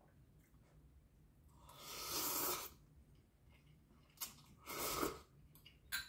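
Instant noodles slurped from a bowl twice, each slurp about a second long, with a couple of small clicks between.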